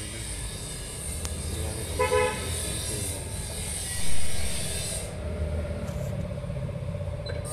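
Background road traffic with a short vehicle horn toot about two seconds in and a low thump a little after four seconds, the loudest moment. A single click about a second in as metal brake-pipe fittings are handled.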